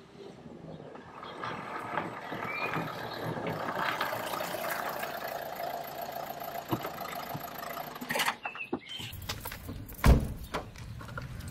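A car drives up on a rough asphalt road, its engine and tyre noise rising as it approaches and then dying away as it stops. A few sharp clicks follow, then about ten seconds in a single heavy thump, the loudest sound.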